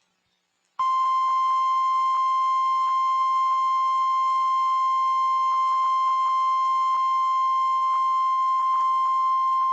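NOAA Weather Radio's 1050 Hz warning alarm tone, the Emergency Alert System attention signal that announces a severe thunderstorm warning. It is one steady, unchanging beep that starts about a second in, holds for about nine seconds and cuts off sharply.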